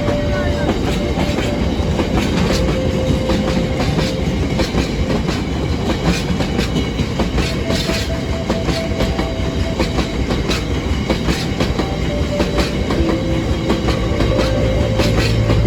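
A train passing over the rails, its wheels clattering over the rail joints in a steady run of clicks.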